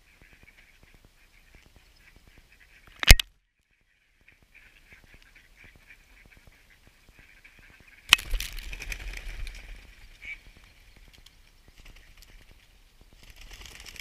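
Mallard ducks feeding on snow, giving soft quacks and chatter. A sharp knock about three seconds in, and a louder noisy burst close to the microphone from about eight seconds in, lasting about two seconds.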